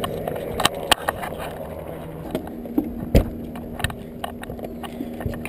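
Handling noise from a camera being fitted to a light aircraft's wing: scattered knocks and clicks, the loudest about three seconds in, over a steady low hum.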